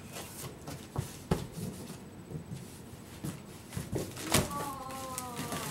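Knocks, bumps and scrapes of a large cardboard box being handled from inside, its flaps shifting. About four and a half seconds in, a long pitched sound starts, falling slowly in pitch.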